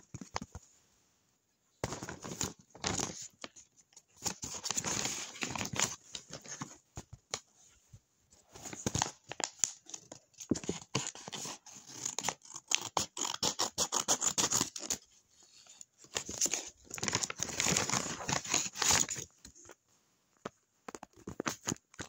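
White paper rustling and crinkling as it is handled, with scissors cutting through it. The sound comes in bursts of a second or a few seconds, with short quiet gaps between them.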